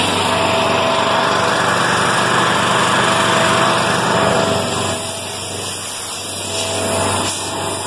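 Small gasoline engine of a portable air compressor running steadily at a constant speed.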